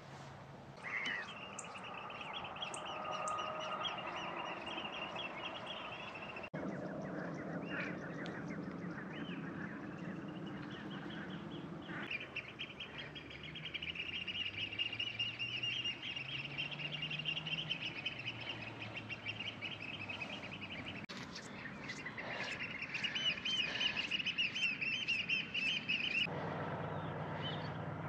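Many waterbirds calling over the estuary mudflats: a steady chatter of trilling, twittering calls with lower honking calls mixed in, changing abruptly a few times.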